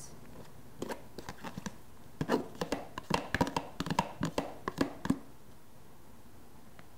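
Metal spoon scraping and tapping inside a plastic food container, knocking grated beet out into a mixing bowl: a quick, irregular run of clicks and scrapes that stops about five seconds in.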